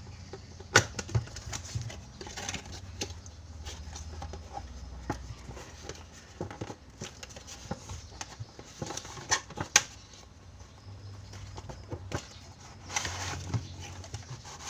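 Handling noise of a toy box being opened and unpacked: scattered clicks, taps and rustling, with sharp knocks about a second in and twice near ten seconds.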